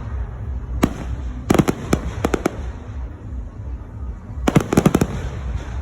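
Aerial fireworks going off: a single sharp bang about a second in, then two quick runs of several cracks and pops, one a little later and one near the end, over a steady low rumble.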